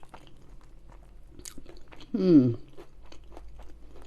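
Close-up crunchy chewing of vegetable samosa pastry, many small crisp crackles. A little past halfway, a short hummed 'mmm' that falls in pitch.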